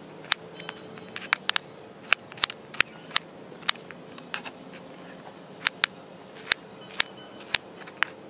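Large kitchen knife chopping peeled pineapple into small pieces on a plastic cutting board. The blade meets the board in sharp, uneven knocks, about two a second.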